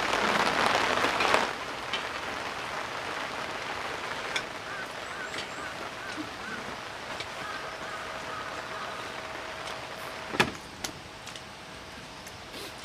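Heavy rain hissing down, dropping suddenly about a second and a half in to a lighter, steady patter of rain, with a few scattered knocks and one sharp knock near the end.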